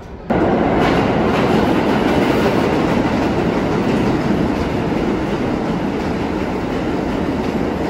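New York City subway train moving through the station on the track beside the platform: loud, steady rail and wheel noise that starts abruptly a moment in.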